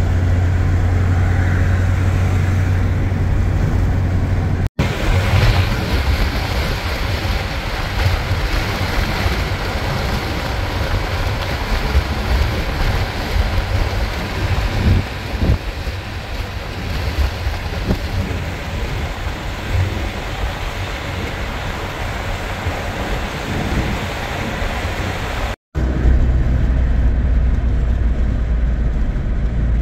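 Steady low rumble of a moving vehicle. For a long middle stretch it gives way to rougher, louder wind-like noise, cut in between brief dropouts.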